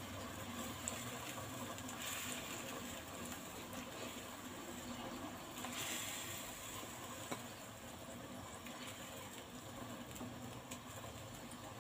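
Spiced broth simmering in a wok. Soft splashes come about two and six seconds in as pieces of boiled chicken are dropped in one at a time.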